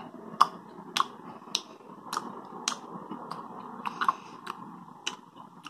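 A person chewing a mouthful of sausage with open-mouthed, wet smacks, sharp smacks about twice a second.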